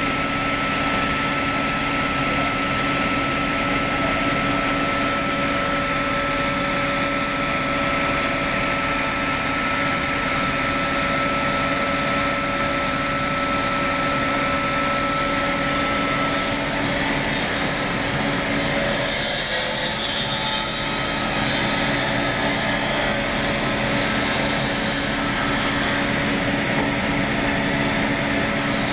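ZMAX woodworking machine's circular saw running steadily with a whine while a log is fed through it. One of its whining tones drops out a little past halfway.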